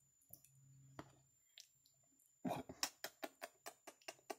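Rapid wet lip-smacking and kissing clicks, about five a second, starting a little past halfway, as a Java (long-tailed) macaque mouths a woman's lips and nose.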